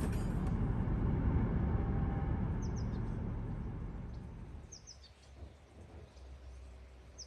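Small birds chirping: short high calls that slide downward, in twos and threes, a couple of seconds apart. Under them, a low rushing noise is loudest in the first half and fades away just past the middle.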